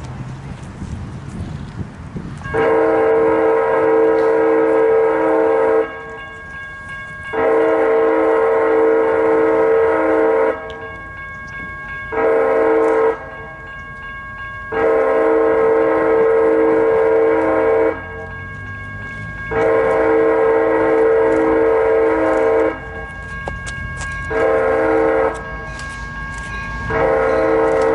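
Locomotive multi-chime air horn blowing the grade-crossing signal, long, long, short, long, then starting the pattern again with a long and a short blast and another long one near the end. Under the blasts there is a steady low rumble of the passing train.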